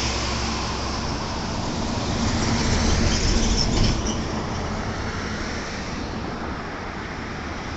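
Road traffic going past: a steady rush of vehicle and tyre noise that swells about two to four seconds in as a vehicle passes, then eases off.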